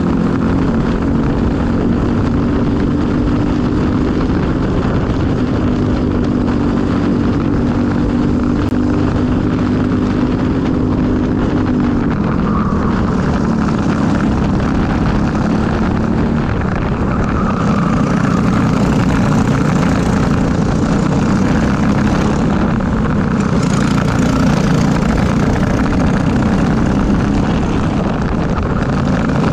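Briggs & Stratton LO206 single-cylinder four-stroke kart engine running hard at racing speed, heard close from the kart itself. The engine note holds steady, then changes about twelve seconds in and keeps shifting as the kart goes through corners.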